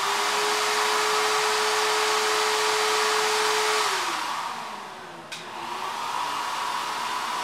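Shapeoko 3 CNC's trim router spinning at full speed: a steady high whine over a loud rushing hiss, which winds down in pitch about four seconds in. A click follows about a second later, then a quieter steady hiss and hum.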